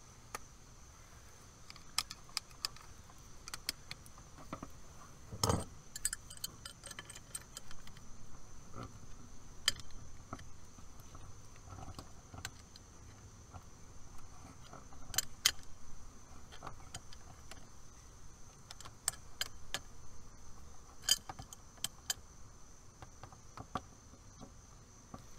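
Tongue-and-groove pliers gripping and turning a metal liquid-tight MC cable connector to tighten it. The sound is a series of light, irregular metallic clicks and ticks, with a louder clack about five seconds in.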